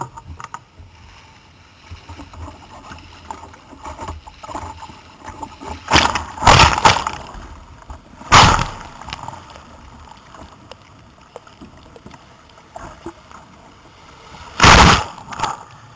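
Breaking surf washing over the bow of a sit-on-top sea kayak, heard from a camera on the bow: a low wash of sea with three loud crashes of water, about six and eight seconds in and again near the end.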